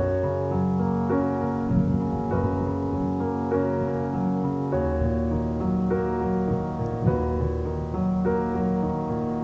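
Background piano music: a melody of held notes changing about every half second over low sustained bass notes.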